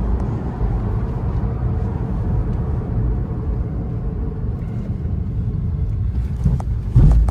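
Maruti Suzuki Ignis on the move, heard from inside the cabin: a steady low rumble of engine and road noise. A loud thump comes about seven seconds in.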